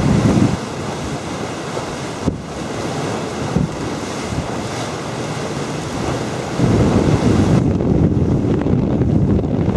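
Wind buffeting the microphone over the rush of water along the hull of a pilot cutter under sail. The low wind rumble eases after half a second and comes back strongly from about two-thirds of the way through, with a single sharp click a little over two seconds in.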